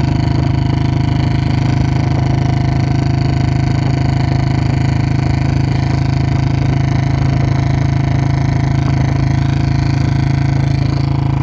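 Royal Enfield Bullet BS4 single-cylinder engine idling steadily, its exhaust running through a short bottle-type aftermarket silencer.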